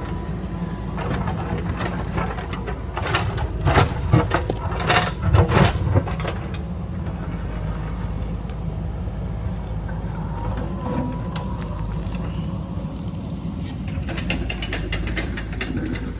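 Heavy earthmoving machine's diesel engine running steadily, with a cluster of sharp knocks and clanks between about one and six seconds in and a few more near the end.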